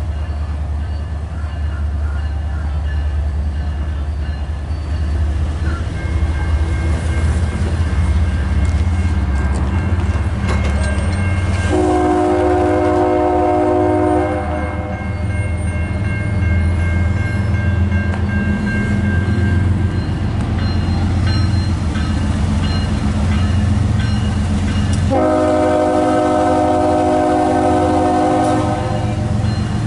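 Diesel locomotives of a CSX intermodal freight train rumbling steadily as the train pulls out after a stop. The multi-chime air horn sounds two long blasts, one about 12 seconds in and a longer one about 25 seconds in.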